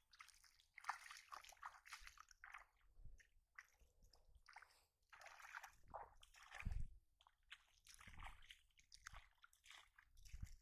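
Faint, irregular sloshing and splashing of bare feet wading through shallow water.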